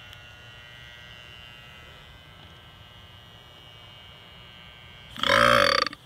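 An opened-up refrigerator compressor, drained of its oil and wired straight to power, hums steadily, then about five seconds in its motor starts with a loud, rough running sound whose pitch wavers up and down. It dips out briefly near the end. The compressor is running dry, with no oil.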